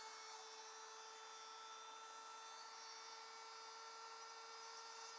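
Dremel rotary tool with a rotary burr bit running at a steady speed: a faint, steady high whine.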